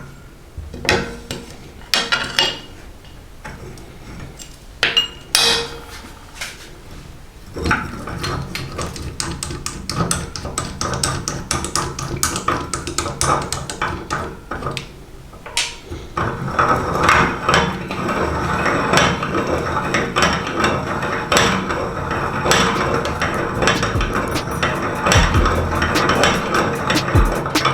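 Meat grinder crushing salty sticks: scattered sharp cracks for the first several seconds, then dense, continuous crunching and crackling from about eight seconds in, growing louder around sixteen seconds in.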